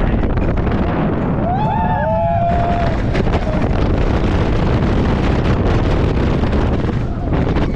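Wind buffeting the microphone over the steady roar and rattle of an RMC topper-track wooden roller coaster train running at speed, with a rider's gliding scream about two seconds in.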